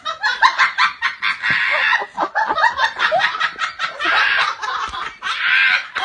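Human laughter in rapid, choppy bursts of breathy 'ha' sounds, going on throughout.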